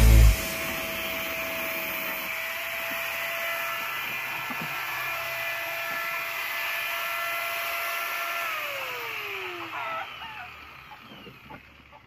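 Corded electric drill running at a steady pitch, then switched off about eight and a half seconds in, its motor whine falling as it spins down.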